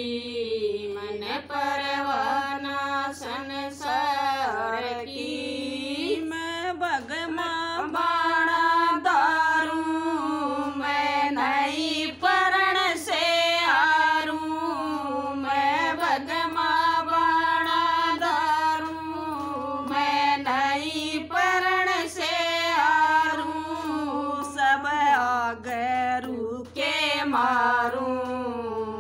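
Women's voices singing a Haryanvi devotional bhajan together, unaccompanied, in long held and sliding sung lines.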